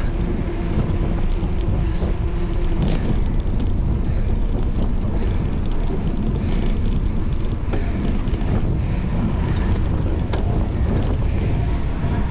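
Wind buffeting the microphone of a moving camera: a steady, loud low rumble, with a few faint ticks now and then.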